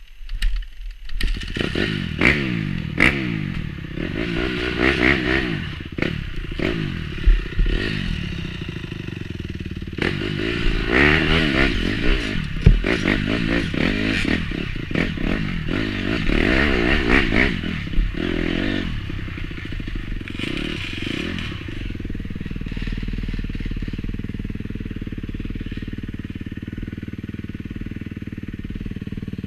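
Off-road motorcycle engine revving up and down again and again under riding, with knocks and clatter from the bike. About two-thirds of the way through it settles to a steady, even run.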